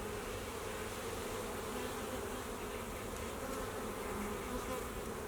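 Honeybee colony buzzing steadily at an open hive, the frames lifted out for inspection and many bees in the air.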